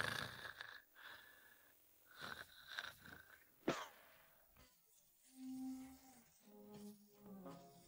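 Cartoon snoring sound effect: several wheezy, raspy breaths with a sudden sharp spike about three and a half seconds in, then two held low tones in the second half.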